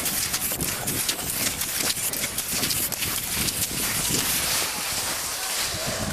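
Rapid, irregular crunching and scraping on packed snow from cross-country skiing close by: skis and poles striking the snow over a steady rushing hiss.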